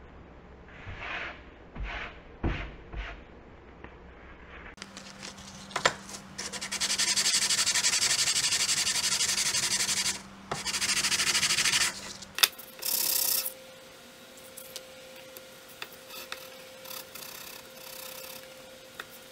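Steel hand-plane blade rubbed back and forth on sandpaper over a flat board to hone it, a rasping scrub. It is loudest and most even through the middle, with a short break and one more brief burst, then goes on softer. A few soft paper swishes come before it.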